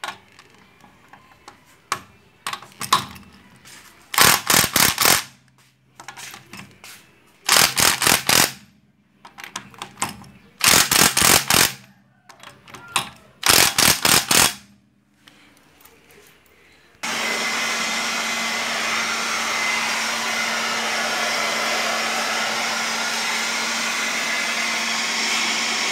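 Cordless Bosch impact wrench hammering on wheel lug nuts in four short bursts of about a second each, a few seconds apart, one burst per nut. About two-thirds of the way in, a loud steady noise with a low hum starts and keeps on.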